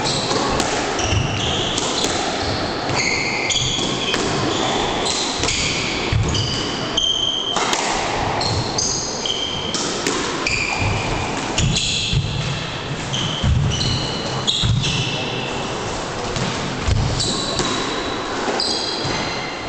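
Squash rally: the ball struck by rackets and hitting the court walls in repeated thuds, with trainers squeaking in short high chirps on the wooden floor throughout.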